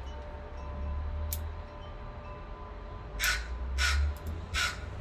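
A crow cawing loudly, three short caws starting about three seconds in, over a low steady rumble.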